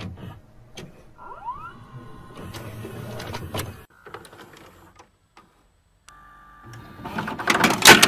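Video cassette recorder mechanism: scattered clicks, a brief motor whir and hiss, a steady tone from about six seconds in, then a loud mechanical clatter near the end.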